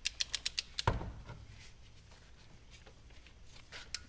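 Ratchet wrench on a cylinder head bolt clicking rapidly, about seven clicks in under a second, then a single clunk, with a faint click near the end. The bolt is being turned a further 90 degrees in the angle-tightening sequence of a head gasket job.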